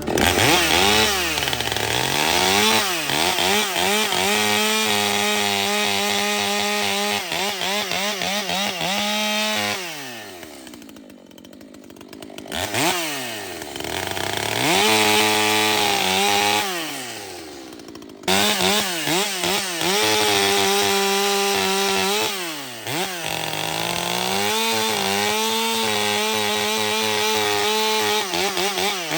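Two-stroke chainsaw cutting firewood. The engine revs up and holds a steady high pitch through each cut, falls back toward idle about ten seconds in and briefly again about two-thirds of the way through, then revs back up into the wood. It winds down near the end.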